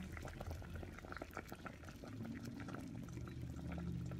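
Water at a rolling boil in a stainless-steel pot: a faint, quick, irregular patter of bubbles popping, with a low steady hum underneath that grows stronger about halfway through.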